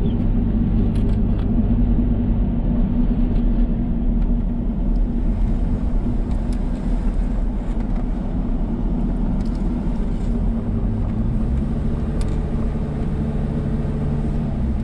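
Car engine and road noise heard from inside the cabin while driving on a paved road. The engine note rises a little about ten seconds in and falls back near the end.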